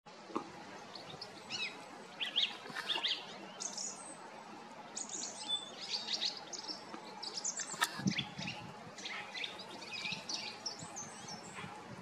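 Small songbirds chirping and twittering: a steady stream of short, high notes, with a single sharp click about eight seconds in.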